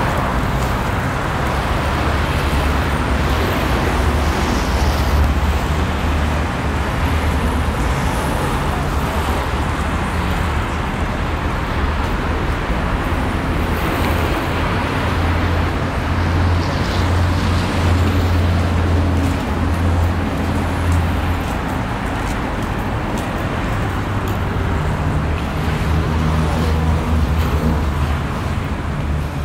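Steady city road traffic noise, a continuous low rumble with a hiss over it.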